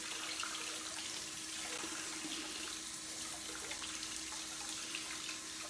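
Kitchen tap running steadily into the sink while hands are scrubbed clean under the stream.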